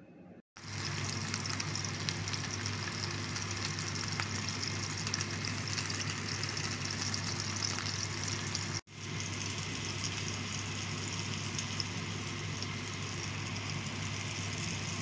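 Salmon steak sizzling in hot oil in a nonstick frying pan: a steady crackling hiss with fine spits, over a low steady hum. It cuts out for an instant about nine seconds in and resumes.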